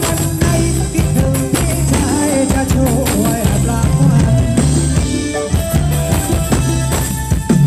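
Live Thai ramwong dance band playing, with a singer over a steady drum beat and bass.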